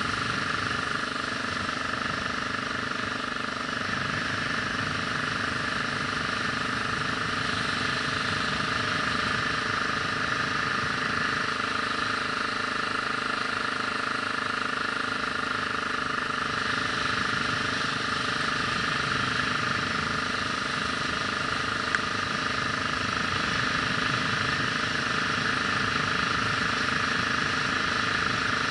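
Vehicle engine running steadily while driving, with no speeding up or slowing. There is one short click about three-quarters of the way through.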